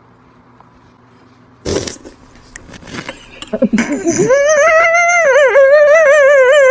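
A sudden noisy burst about two seconds in, then a cartoon character's voice letting out a long, high, wavering wail, crying in distress, that holds until near the end.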